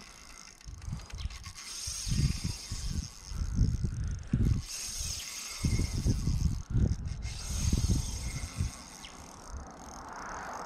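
A Shimano Stradic spinning reel working while a big fish is played, with mechanical whirring and clicking. Irregular low thumps and knocks come and go through most of it, then fade near the end.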